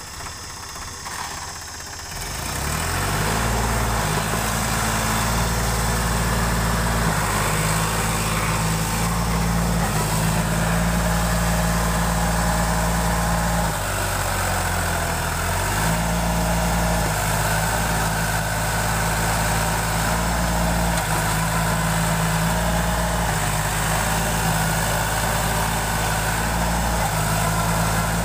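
Sonalika tractor's diesel engine running steadily with a low, even throb. It comes in about two seconds in, and its engine speed dips briefly about halfway through before recovering.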